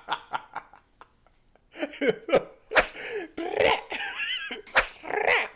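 A man laughing hard in short bursts, with a brief pause about a second in before louder laughter.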